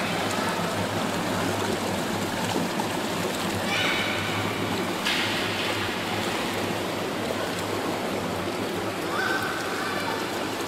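Pool water splashing and sloshing steadily as a child swims breaststroke through it.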